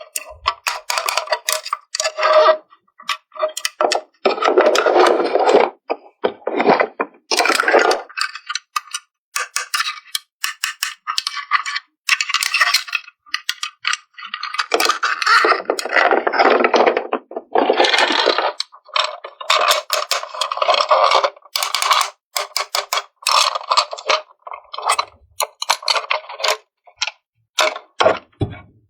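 Small plastic toy parts being handled and fitted together: many sharp clicks and clinks, rattling, and longer scraping or rustling stretches.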